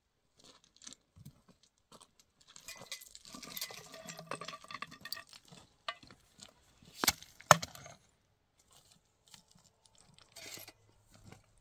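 Objects being handled: scattered clinks and scrapes, with two sharp knocks about seven seconds in.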